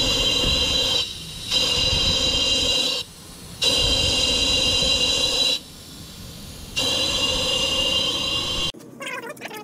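Compressed air from a leak-down tester hissing through the cylinders of a 1968 Austin-Healey Sprite's four-cylinder engine. The hiss cuts out and comes back three times, then stops abruptly near the end. Air leaking into another cylinder is the sign of a failed head gasket.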